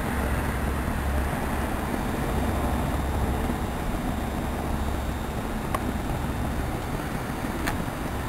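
Steady low background rumble, with two faint clicks near the end.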